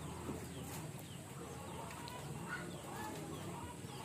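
Faint bird calls: hen-like clucking mixed with short high chirps from small birds, over steady outdoor background.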